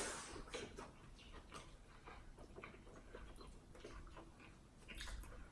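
Faint eating sounds: quiet chewing and mouth clicks with small irregular ticks and taps from handling the seafood.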